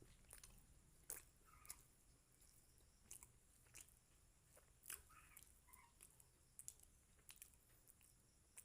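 Faint chewing of chicken liver and gizzard curry with rice, with irregular wet mouth clicks and smacks every half second or so.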